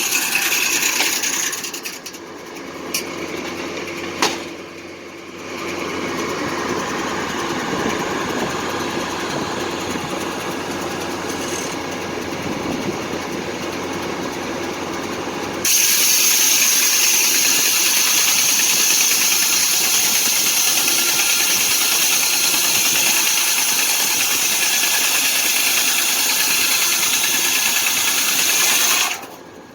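Foley Belsaw circular sawmill running, with its engine and blade going. About halfway in the sound jumps suddenly to a louder, hissier run that holds steady until just before the end.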